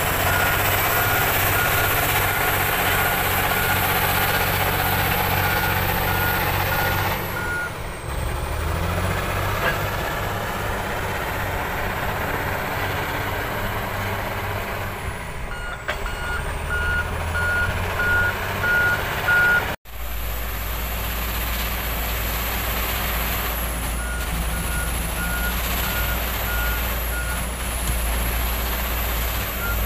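Crawler bulldozer's diesel engine running steadily, with its reverse alarm beeping in several stretches. The sound drops out for an instant about two-thirds of the way in.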